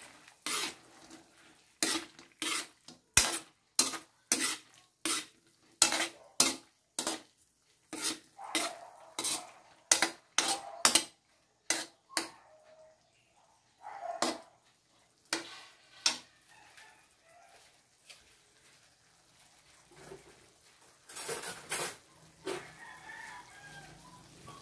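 Metal spatula scraping and knocking against a metal wok while tofu and mushrooms are stir-fried, with quick regular strokes about twice a second at first, then slower and sparser, with a couple of longer scrapes near the end.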